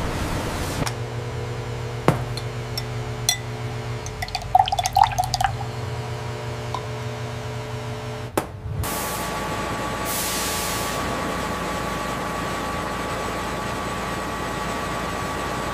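Brief rush of water through pulp fibre, then a steady hum with a few small glass clinks, one about two seconds in and a cluster around five seconds. From about nine seconds comes the steady rush of wet pulp slurry pouring into a tank, with a faint thin whine.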